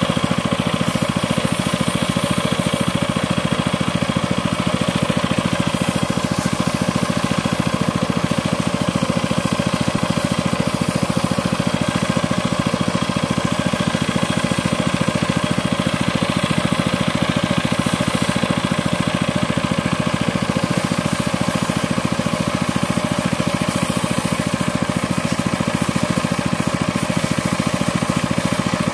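An engine running steadily at a constant speed with a fast, even pulsing, unchanged throughout.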